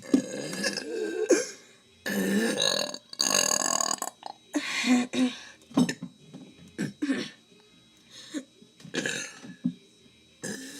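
A person burping on purpose, over and over: three long, loud burps in the first four seconds, then shorter, quieter burps about a second apart.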